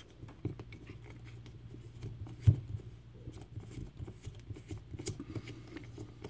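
Small metal clicks and taps of a Phillips screwdriver working tight screws out of a Medeco padlock and handling its small parts, with one sharper click about two and a half seconds in. A low steady hum sits underneath.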